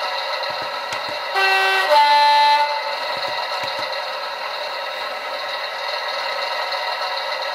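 A Bachmann Class 101 DMU model's Howes sound decoder plays a recorded diesel engine running steadily through the model's small speaker. About a second and a half in it sounds a two-tone horn, a higher note then a lower note, each about half a second long.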